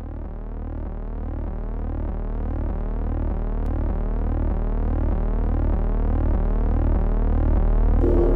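Synthesized electronic tone opening a background music track: a low drone overlaid with sweeping tones that repeat about twice a second, fading in and growing steadily louder. Fuller music with piano begins near the end.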